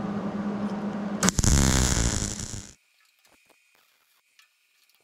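MIG welder arc buzzing and crackling while welding an 18-gauge steel repair patch into car body sheet metal. It gets louder and harsher a little over a second in, then cuts off abruptly near the middle, leaving only a few faint ticks.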